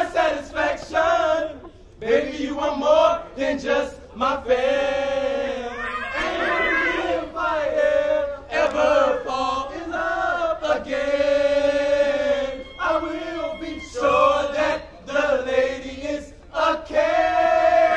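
A line of young men chanting and singing a fraternity probate chant in unison, in short shouted phrases at first and then long held notes.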